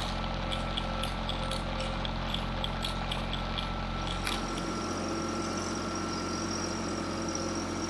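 Compact diesel tractor engine running steadily as it pulls a seed planter down a row at planting speed. A light, regular ticking, about three or four a second, runs along with it during the first half.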